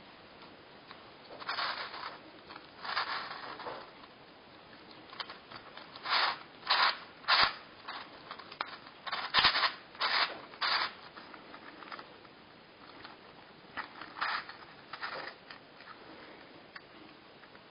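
Master Skewb twisty puzzle being turned by hand: irregular bursts of plastic pieces scraping and clicking as the corners turn, some longer grinding turns and a few sharp clicks, the busiest and loudest run of turns about halfway through.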